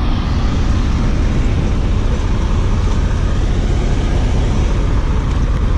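Steady low rumble of a semi truck's engine idling.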